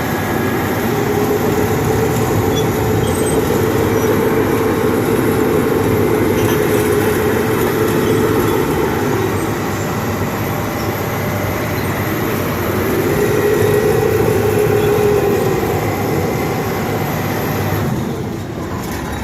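Old International crawler bulldozer running and moving, a loud steady engine-and-machinery noise with a whining tone that swells and fades twice. The noise drops a little near the end.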